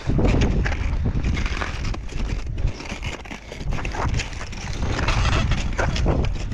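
Crampon footsteps crunching on glacier ice, irregular short crunches, over heavy wind buffeting the microphone.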